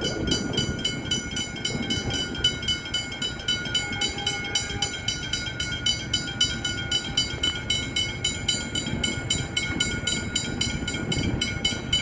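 Suburban electric train running along the tracks with a steady low rumble, and a rapid, evenly repeating high ding sounding over it throughout.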